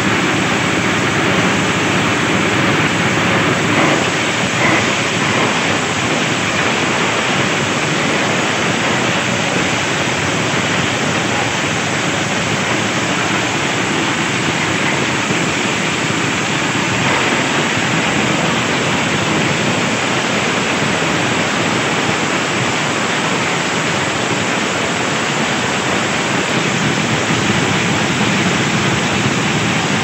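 Engine-driven compost shredder running under load, with a loud steady noise as leafy branches are fed in and chopped, the shredded material spraying out of the outlet chute.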